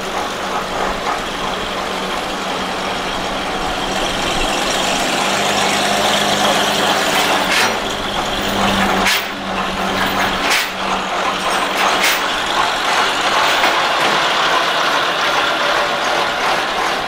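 Engines of vintage fire engines, a Bedford 'Green Goddess' and then a Dodge, running as they drive slowly past one after the other, getting louder about four seconds in. A few short sharp clicks come in the middle.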